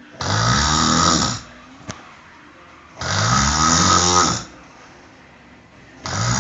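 A man snoring loudly in long, rattling snores about three seconds apart: two full snores, with a third starting near the end.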